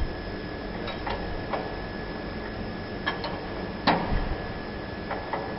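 A few irregular sharp metallic clicks and clinks as a wrench is worked on a bolt on a steel truck frame rail, the loudest about four seconds in. A steady faint high-pitched tone runs underneath.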